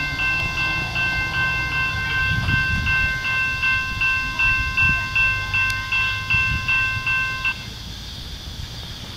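Railroad crossing bell ringing rapidly, about three strokes a second, as the crossing gates come down, warning of an approaching train. It stops abruptly about three-quarters of the way through, leaving a low rumble underneath.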